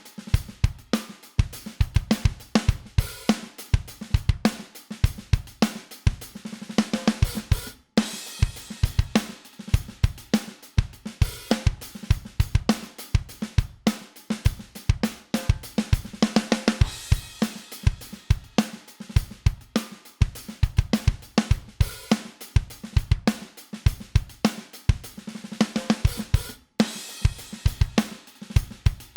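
Drum kit loop of kick, snare, hi-hats and cymbals playing as a compressed drum bus through vari-mu (variable-mu) tube compressor plugins. The loop restarts a few times after very brief gaps.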